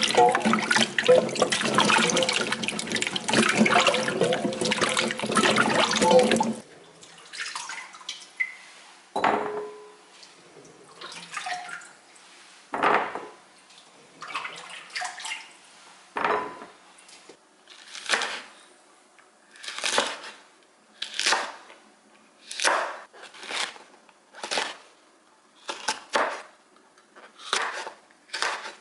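Tap water running hard over baby potatoes as they are rubbed clean by hand in a sink, cutting off suddenly after about six seconds. Scattered knocks follow, then a kitchen knife slicing red chillies on a wooden cutting board, about one chop a second.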